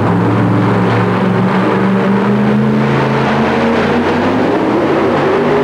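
Super modified two-wheel-drive Dodge pulling truck's engine running hard at high revs under load, dragging a weight-transfer sled; its pitch shifts as it pulls.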